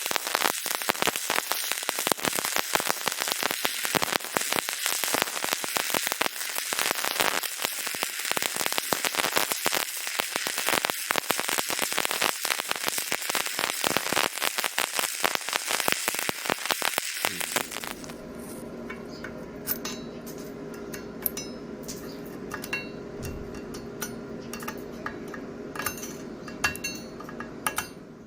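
Stick welding arc crackling steadily, like frying, then cutting off about two-thirds of the way through. After it comes a quieter steady hum with scattered light clicks.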